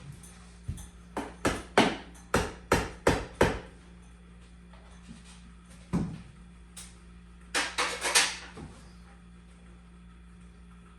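A series of sharp knocks: a quick run of about eight, then a single one and a short cluster of three or four, over a steady low electrical hum.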